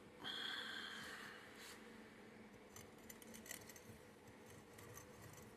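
Metal engine parts handled by hand: a short metallic scrape with a ringing tone near the start, then faint light clicks and ticks.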